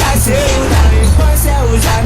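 Music: a Brazilian funk track with a heavy bass beat, a gliding melodic line and sharp high percussion hits.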